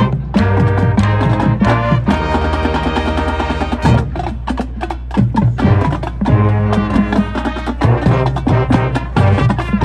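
A high school marching band playing: held brass chords over the drumline's sharp percussion strikes.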